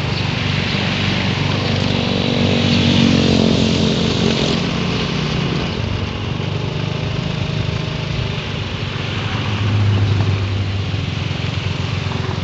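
A small engine running while the vehicle is under way, with wind rushing over the microphone. The engine gets louder about three seconds in and swells again near ten seconds.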